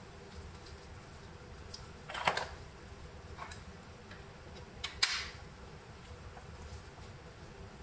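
Hard plastic clicks and knocks of 3D-printed skull parts being handled and fitted together, with two sharper clicks about two and five seconds in and a few fainter ticks between.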